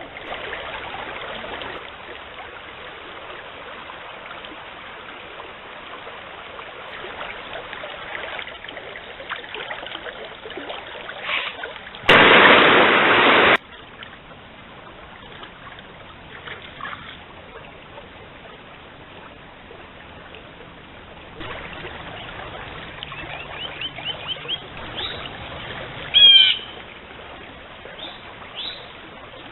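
Stream water running steadily, broken about halfway by a sudden loud rush of noise lasting about a second and a half. Near the end, short bird calls begin, with one loud call a few seconds before the end.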